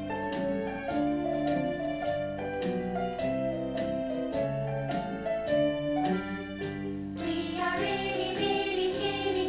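Music with held pitched notes over a steady drum beat. About seven seconds in, a brighter, jingling part comes in.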